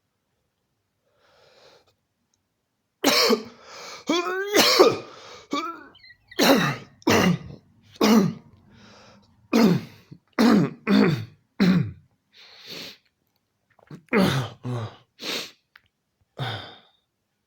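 A person coughing over and over in fits, starting about three seconds in: around fifteen short, harsh coughs in quick clusters, a few of them voiced and drawn out.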